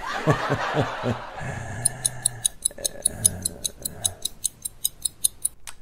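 Clock-like ticking sound effect, about four to five crisp ticks a second, starting about two seconds in and stopping just before speech resumes. It follows a brief low vocal sound near the start.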